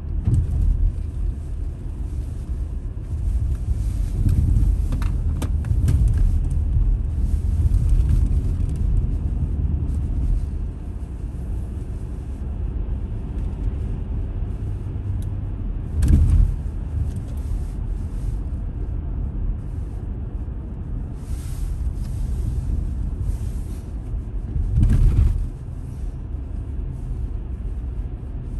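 Car cabin noise while driving: a steady low rumble of engine and tyres on the road. Two short, louder thumps come about sixteen and twenty-five seconds in.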